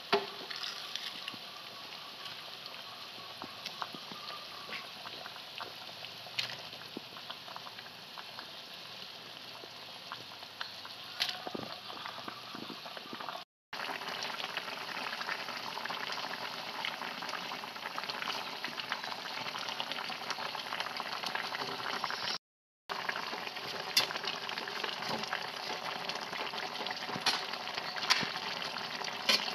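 Vegetable and fish broth boiling in an aluminium wok: steady bubbling with a few sharp clicks, getting louder after a short break about halfway through.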